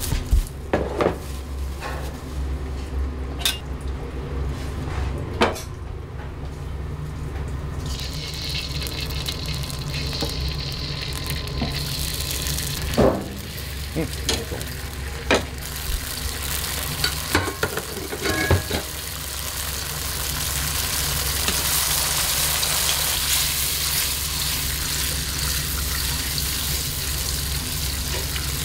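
Food frying in hot oil in a restaurant kitchen. The sizzle starts about a third of the way in and grows into a steady, loud hiss. Utensils and pans knock and clink several times over a steady low hum.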